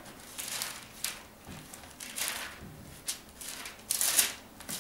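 Bible pages being turned by hand: a string of short papery rustles, the loudest about four seconds in.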